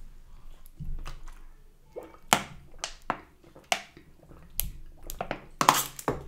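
Someone drinking from a plastic water bottle: a string of sharp clicks and crackles as the thin plastic bottle is handled and drunk from.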